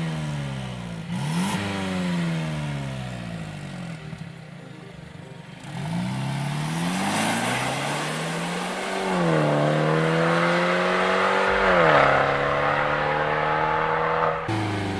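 Mercedes-Benz C300 W205's turbocharged four-cylinder engine through an Armytrix valved exhaust, revved in two blips that fall away, then raised and held at higher revs, stepping up twice before dropping off near the end.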